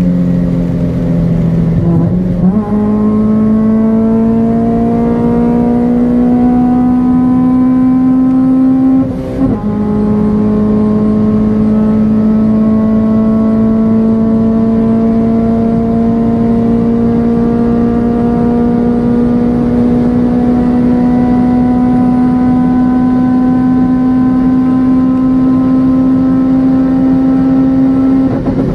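Honda K20 2.0-litre four-cylinder engine in a CR-Z at full throttle, heard from inside the cabin, accelerating hard at high speed. It shifts up twice, about 2 and 9 seconds in, the pitch dropping at each shift, then climbs slowly and steadily in one long pull as the car nears its top speed.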